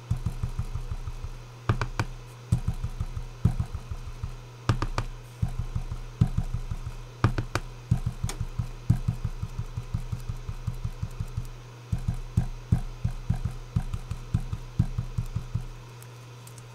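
A foam sponge dauber tapped quickly and repeatedly through a plastic stencil onto a paper tag, in runs of sharp taps about four to five a second, over a steady low hum. The tapping stops about a second before the end.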